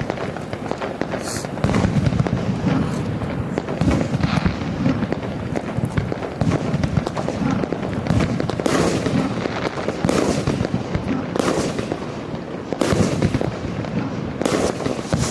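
Consumer fireworks crackling densely and continuously, with several louder bursts of crackle in the second half.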